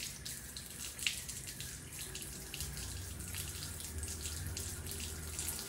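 Water running from a tap in a steady stream onto a steel pot and a tiled counter, with a few sharper splashes as a hand is wetted in the stream.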